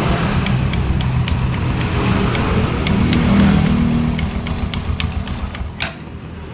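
Motorcycle engine running, briefly revving about halfway through, with irregular sharp clicks, a 'klak klak' from the clutch area that comes with the throttle.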